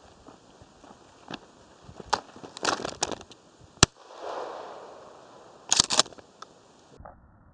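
A single shotgun shot about four seconds in, heard as one sharp crack that rolls away across the field. Before it come crunching steps through dry grass, and about two seconds after it a pair of sharp clacks.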